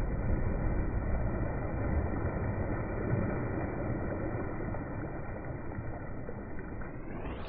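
Pool water splashing and churning around swimmers, a steady dull rushing with no high end that fades slightly.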